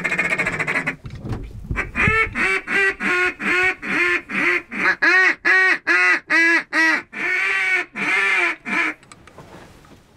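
Mallard duck call blown in the blind: a raspy drawn-out note, then a loud run of about twenty quacks at roughly three a second, ending with a few longer, drawn-out quacks.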